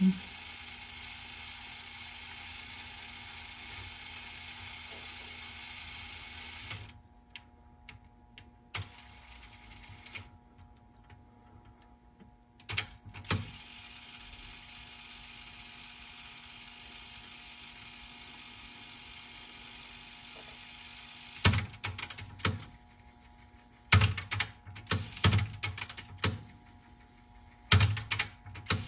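Sony TC-WR950 cassette deck's tape transport running with a steady whir, stopping for a few seconds, then running again. Near the end come several bursts of sharp mechanical clicks and clunks from the transport mechanism.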